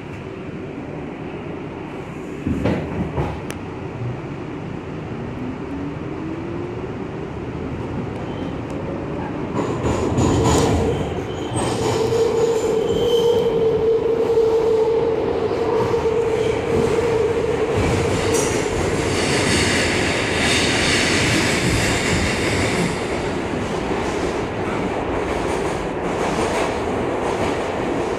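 R62A New York City subway car pulling out and picking up speed: the traction motors' whine rises in pitch and then holds steady over the rumble of the wheels on the rails, after a couple of knocks near the start. About twenty seconds in, the wheels squeal for a few seconds.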